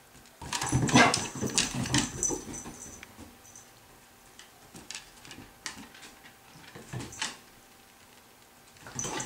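A kelpie and a puppy playing on a wooden floor: a burst of scuffling, dog noises and clicking starting about half a second in and lasting a couple of seconds, then scattered clicks and knocks of paws and claws that die away near the end.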